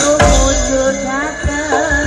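Live Javanese gamelan music: a singer's voice over held metallic tones and low drum strokes.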